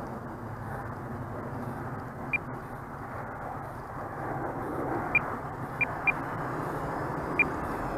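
Steady rushing noise with five short, high electronic beeps: one about two seconds in, then four more spread over the last three seconds. The beeps are the loudest sounds.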